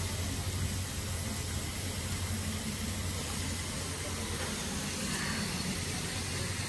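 Steady background hiss with a low hum underneath, with no distinct events.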